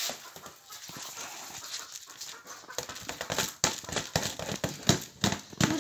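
Rice grains poured and tipped off a tray into a stone mortar: a hissing, rattling pour that grows busier and louder about halfway through.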